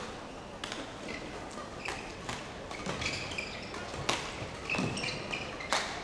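Badminton rally: a shuttlecock struck back and forth with rackets, a sharp crack about six times, roughly once a second. Short squeaks of court shoes between the hits.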